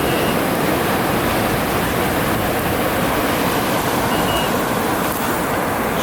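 Steady rushing wash of ocean surf with wind on the microphone. Two short high beeps sound, one right at the start and one about four seconds in.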